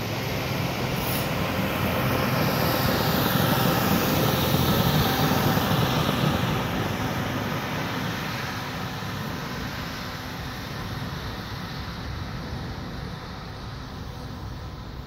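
A railway maintenance-of-way track machine rolls past on the rails with its engine running. The rumble builds to a peak about five seconds in, then fades as the machine moves away.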